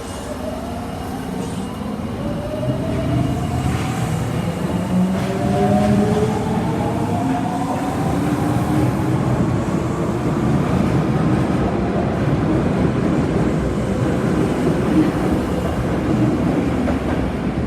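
Osaka Metro Tanimachi Line 22 series subway train pulling away: the traction motor whine climbs in pitch in several stepped tones over about ten seconds. Under it, a rumble of wheels on rail builds and then holds steady.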